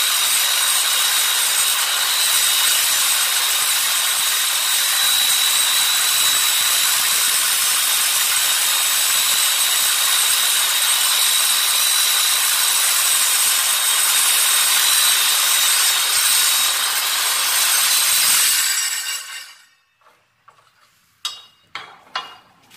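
Miter saw with a TCT (tungsten-carbide-tipped) metal-cutting blade cutting through steel: a loud, steady, high-pitched grinding screech with a constant whine. About 19 seconds in the motor cuts off and winds down, and a few short knocks follow near the end.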